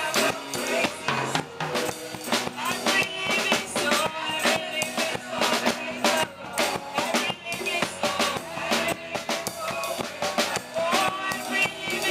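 Live gospel band music driven by a drum kit, with melodic lines over a steady beat.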